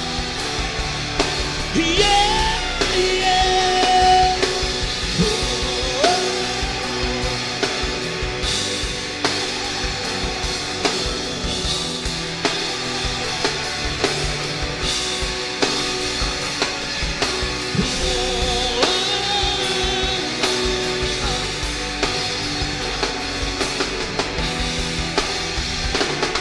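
Live rock-style worship band playing an instrumental passage: drum kit keeping a steady beat under guitars, with a held, bending melody line rising over it twice.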